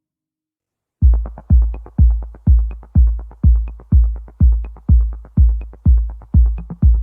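Electronic background music with a heavy drum-machine kick about twice a second and light ticks between, starting about a second in after silence.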